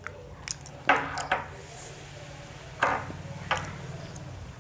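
Close-up chewing of a homemade fried-chicken burger, with four sharp crunches or clicks: two about a second in and two around three seconds in.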